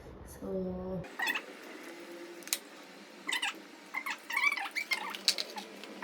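A young child's high-pitched squeals and babble, several short calls, picked up through a wireless clip-on mic. About a second in, the low background hum drops away, in keeping with the mic's noise reduction keeping background noise out.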